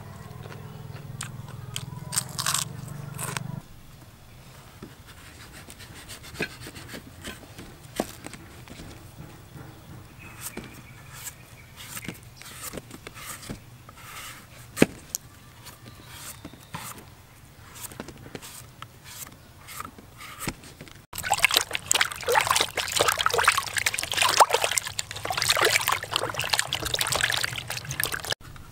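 A knife scraping the skin off a starchy root, with soft scrapes and scattered light ticks. About three-quarters of the way in this gives way suddenly to hands splashing and rubbing in a plastic basin of water, which is louder and continuous.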